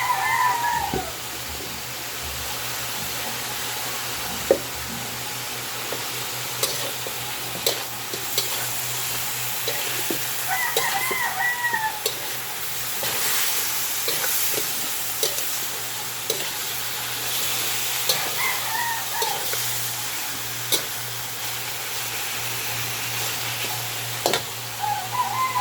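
Food sizzling in a hot pot, with the clicks and scrapes of a utensil stirring it. A rooster crows four times, every seven or eight seconds.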